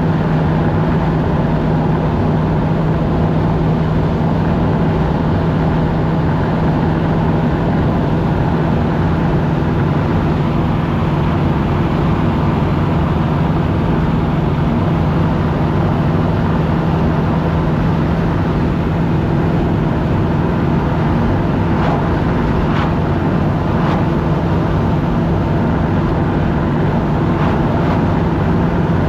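1976 Chevrolet Nova's engine and exhaust running steadily at cruising speed, heard from inside the cabin along with road and tyre noise; the engine note holds one pitch throughout.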